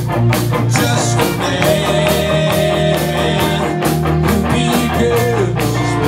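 Live rock band playing: electric guitars over a steady drum-kit beat, with a held guitar note that bends in pitch near the end.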